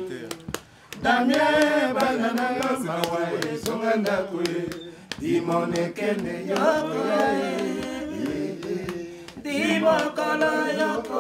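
Singing voices holding long, wavering notes, starting about a second in after a brief lull, with a few sharp clicks scattered through.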